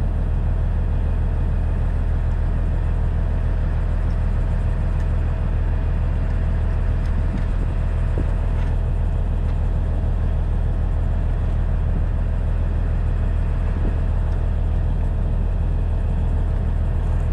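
A truck's diesel engine idling: an even, unchanging low rumble.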